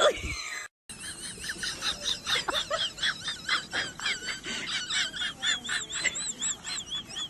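Cat chattering at the window: rapid clicks and high chirps repeating several times a second. The chattering starts about a second in, after a brief falling cry at the very start.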